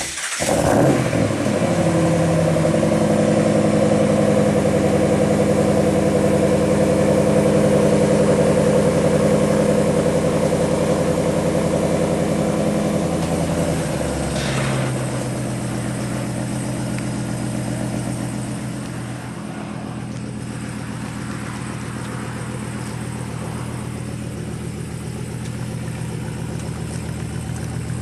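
Ram 1500's 5.7-litre Hemi V8 through a Flowmaster muffler, running at a high, steady fast idle just after a cold start. About 14 s in the idle steps down to a lower, deeper note, and it runs somewhat quieter from about 19 s on.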